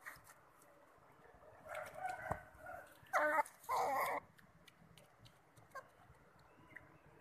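Pet otter calling: a few shorter, softer calls about two seconds in, then two loud, high-pitched calls of about half a second each, three to four seconds in.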